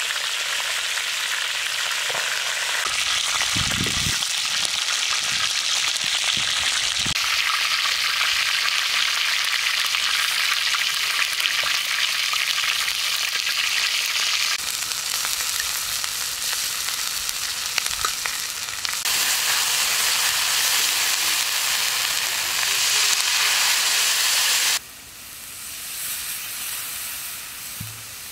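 Food frying in hot oil in a pan: a steady, loud sizzle with a few low knocks, as from stirring. The sizzle cuts off suddenly near the end, leaving much quieter sound.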